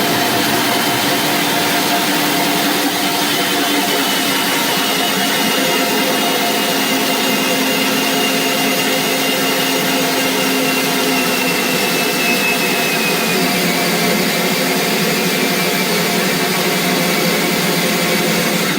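Cordless drill boring through wood with a hole saw while a shop vacuum sucks away the sawdust: a loud, steady rush with a faint motor whine that slowly drops in pitch under the load. It cuts off abruptly at the very end.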